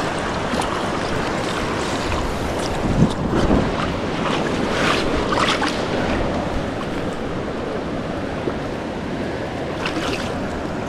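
Steady rushing noise of a flowing river, mixed with wind buffeting the microphone. A few brief rustles and knocks come through as the angler moves along the brushy bank.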